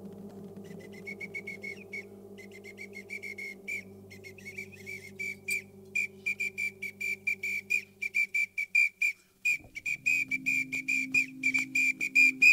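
Music with a whistle blown in short, rapid blasts over a sustained low drone; the blasts start soft and scattered, then grow louder and settle into about three or four a second. The drone shifts to a new chord near the end.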